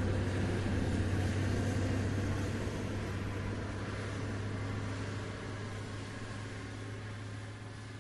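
Dumper truck's diesel engine running steadily with a low hum, slowly fading away.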